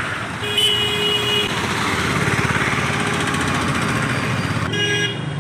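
Road traffic with vehicles passing, and a vehicle horn sounding for about a second near the start and again briefly near the end.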